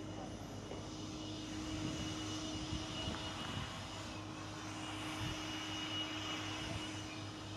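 Steady mechanical drone, like an engine running, with a thin high whine above it.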